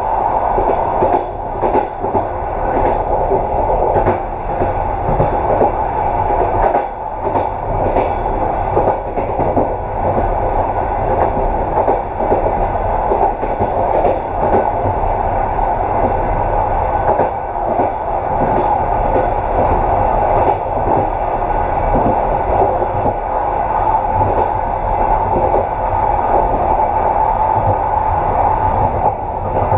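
Train running along the track with a steady rumble, and wheels clicking now and then over rail joints, mostly in the first third.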